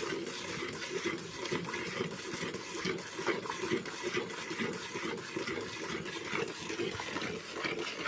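A cow being milked: repeated short squirts of milk hitting milk in a filling container.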